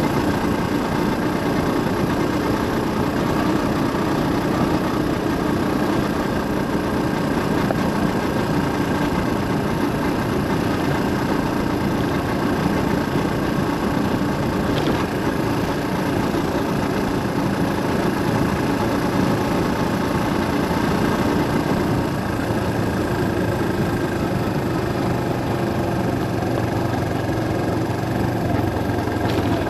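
A car driving along, with a steady run of engine and road noise.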